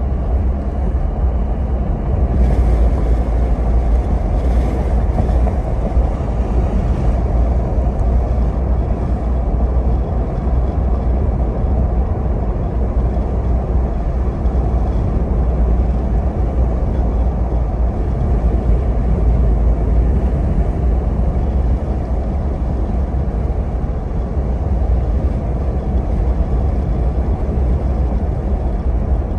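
Car driving at a steady speed on a paved road: a constant low rumble of engine and tyre noise.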